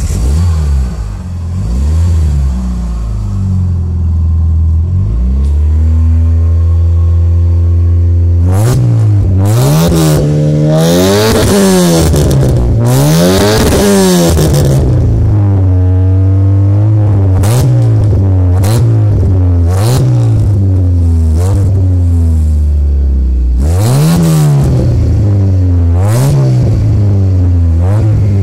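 Mitsubishi Eclipse engine heard at the exhaust through a large single aftermarket tip. It catches right at the start and idles high, settling lower over the first few seconds. From about eight seconds in it is revved in repeated throttle blips, a few long ones climbing high in the middle, smaller ones after, and quick sharp blips near the end.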